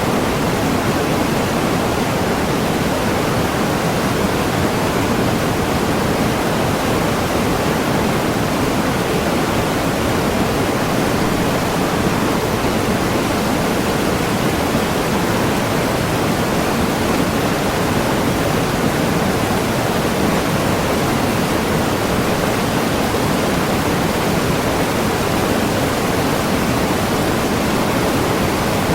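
Waterfall pouring: a steady, even rush of falling water with no change.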